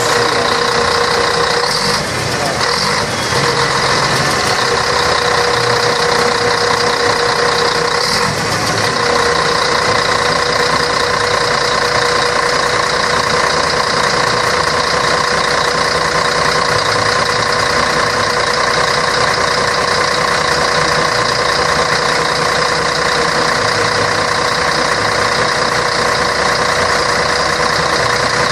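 Scania K113 bus's diesel engine running steadily with an even drone.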